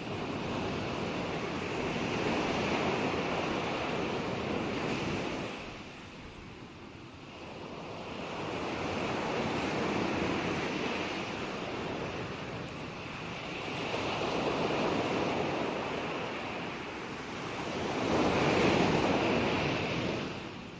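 Gentle ocean waves breaking and washing on a shore, the surf swelling and fading four times, the loudest wave near the end.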